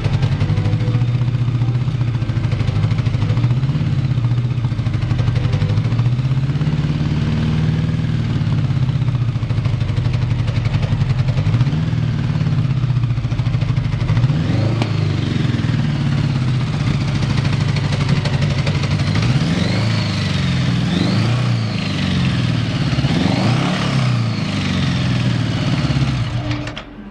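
Honda GL1100 Gold Wing flat-four engine running, idling at first, then revved up and down several times in the second half before it cuts off near the end. The engine is sold as idling steadily with no abnormal noises.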